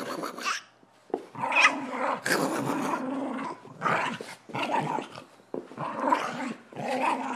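Dogs growling in rough play-fighting: a string of rough growls, each about half a second to a second long, with short breaks between them.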